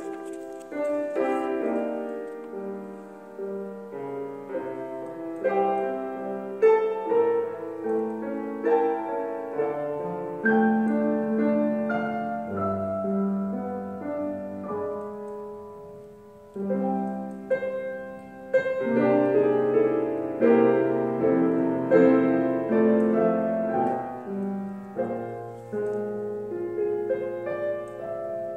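Solo piano playing slow chords and melody notes that are struck and left to ring, with a short pause about sixteen seconds in before the playing picks up again.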